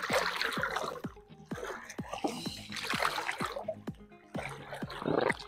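Background music with a steady fast beat, about two and a half beats a second, over water splashing and sloshing as a person kicks a leg through the water of a swimming pool.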